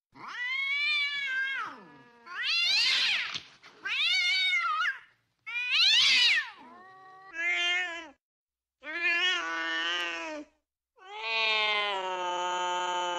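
Cats caterwauling while mating: a string of about seven drawn-out yowls that swoop up and down in pitch with short gaps between them. The last one is a long, steady wail that starts near the end.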